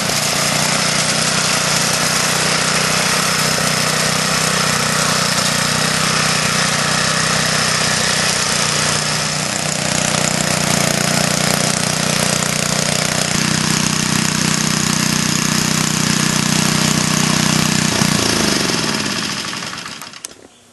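Antique Jari sickle bar mower's Briggs & Stratton engine running steadily, with the clatter of its cutter bar, while cutting through bamboo. Near the end the engine slows, its pitch falling, and dies away.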